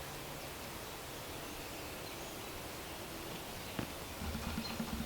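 Faint steady outdoor background noise, with a single sharp click a little under four seconds in and brief low rustling just before the end.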